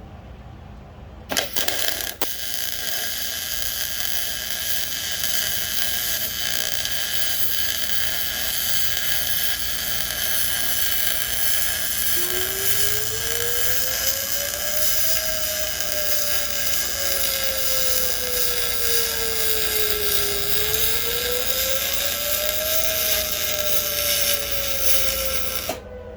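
A small high-speed motor running steadily with a high whine, switched on with a click about a second in and cutting off just before the end. From about halfway a lower tone rises and falls slowly, as if the load on it is changing.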